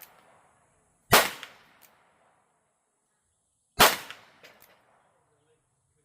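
Two pistol shots, about two and a half seconds apart, each sharp report trailing off in a short echo.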